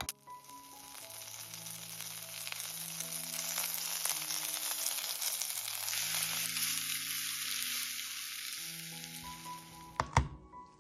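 Food sizzling as it fries in hot oil in a pan: a steady hiss that swells over the first few seconds and stops abruptly near the end, followed by a couple of sharp knocks.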